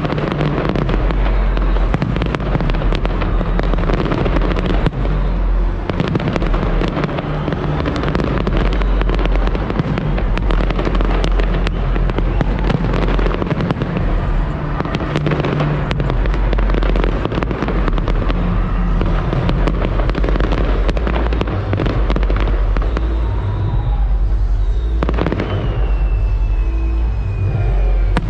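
Fireworks display going off in a dense, continuous barrage of cracks and bangs, with music playing underneath. Near the end a thin whistle falls slowly in pitch.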